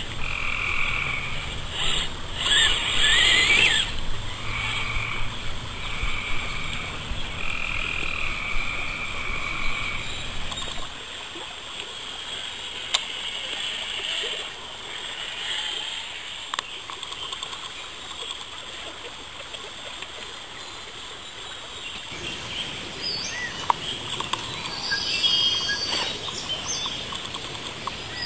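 Frogs calling: a string of short repeated trill-like calls, each under a second, through about the first ten seconds, with fainter calls later on.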